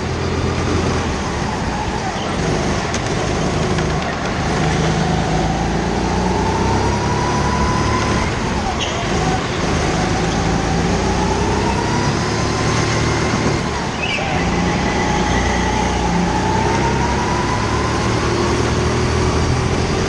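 Go-kart engine heard from on board at racing speed, its pitch climbing slowly as the kart accelerates, dropping sharply about eight seconds in and again around thirteen seconds as it slows for corners, then climbing again.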